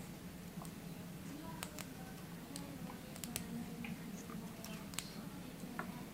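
Light, irregular clicks and ticks, about a dozen sharp ones, over a faint steady low hum: small parts and tools being handled at a workbench.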